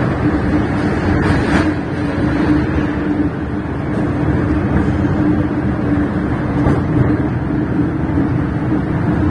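MTR M-train electric multiple unit running through a tunnel, heard from inside the car: a steady rumble of wheels on track with a constant hum, and a couple of faint clicks.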